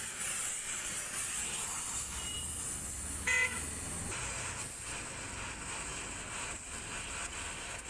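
Oxy-acetylene gas-welding torch flame hissing steadily as it welds a scooter's exhaust bend pipe onto the silencer. A short toot sounds about three seconds in.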